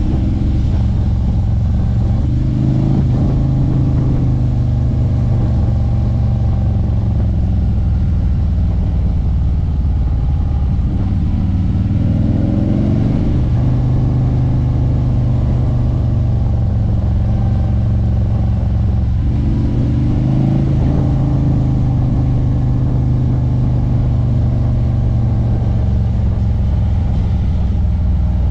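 Harley-Davidson Street Glide's V-twin engine running under way at steady cruising revs, the pitch rising a few times as the throttle opens: about three seconds in, around twelve seconds, and near twenty seconds.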